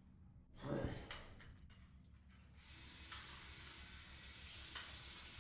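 A person breathes out once, about a second in. About halfway through, a soft hiss with a steady high ticking beat comes in: the opening of a music track.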